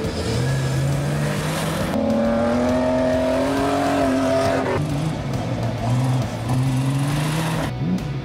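Off-road race truck engines accelerating hard past on a dirt course, their pitch climbing as they rev. The sound changes abruptly about two and five seconds in as one truck gives way to the next.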